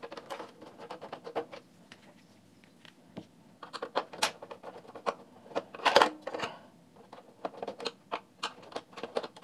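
Small screwdriver turning screws out of a plastic cassette recorder case: a run of small clicks and scratchy ticks, with a louder knock about six seconds in.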